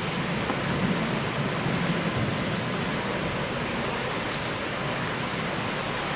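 Steady, even hiss of an indoor pool hall's background noise, with no distinct sounds standing out.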